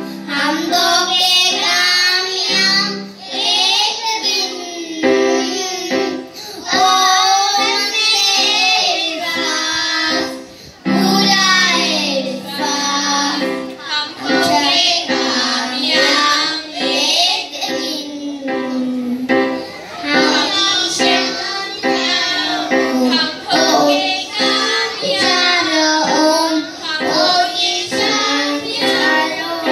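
A children's choir singing a song together into microphones, amplified through stage speakers. Low held notes sound under the voices twice.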